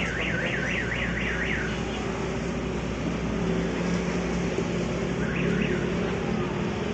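An electronic alarm warbling rapidly up and down, about four sweeps a second, that breaks off under two seconds in and gives one short burst again near the end, over a steady low hum.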